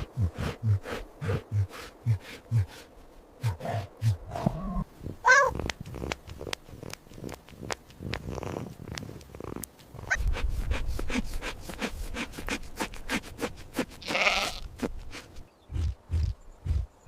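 Recorded farm animal calls: runs of short, low grunting pulses broken by a few higher bleats.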